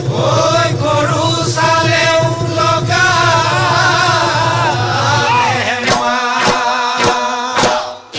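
Assamese Bihu folk song: voices singing together over a steady low drone, with sharp beats about two a second joining in near the end.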